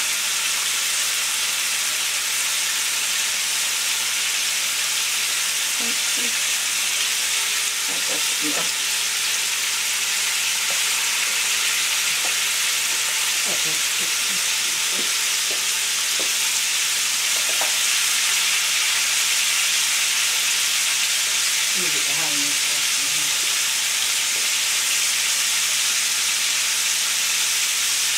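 Floured chicken wings deep-frying in oil in a cast-iron Dutch oven: a steady, dense sizzle of bubbling oil. The oil has got too hot, and the heat has just been cut back to let it cool.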